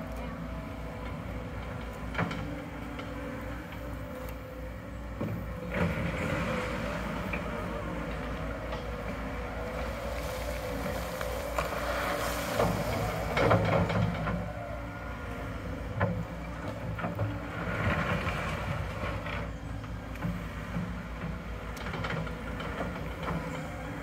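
John Deere compact track loader's diesel engine running steadily while its bucket pushes and dumps crushed stone, with stretches of gravel sliding and scraping and a few sharp clanks.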